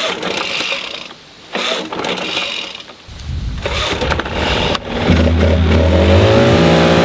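Backpack leaf blower engine starting: a few rasping bursts, then it catches with a low rumble about three seconds in and is throttled up about five seconds in, its pitch rising and settling into a loud, steady run.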